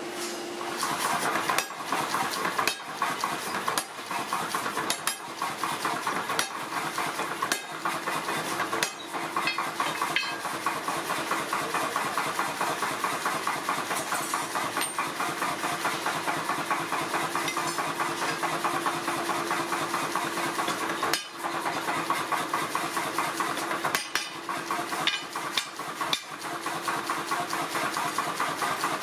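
A 30 kg mechanical power hammer's motor running steadily with a constant hum, and irregular sharp metallic knocks now and then, closer together in the first third.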